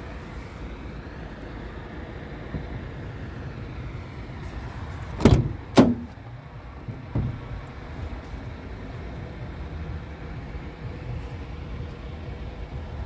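Scania R truck cab door being opened: two sharp clunks of the latch and door about half a second apart, then a smaller knock, over a steady low rumble.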